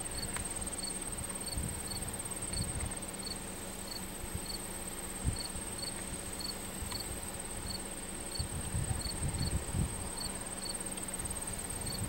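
Crickets and other insects: a steady high-pitched trill, with a separate short chirp repeating about twice a second.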